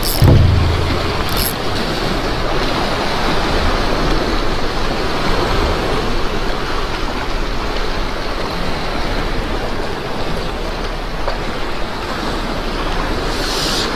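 Steady wash of sea surf on shore rocks, with a few brief rustles near the start and again near the end.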